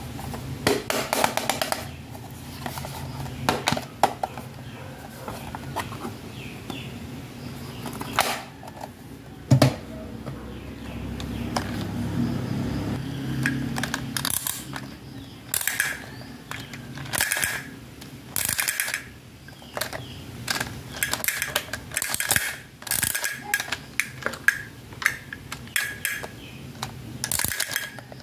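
Hard plastic pieces of a Hello Kitty toy handled and clicked together: a series of sharp clicks and clacks, coming faster in the second half.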